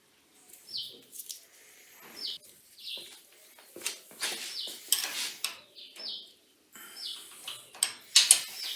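Metal clinks and scraping of tools working on the drum sander's adjustment bolts as they are tightened after shimming the drum, loudest near the end. Short high chirps, each falling slightly, come every second or so throughout.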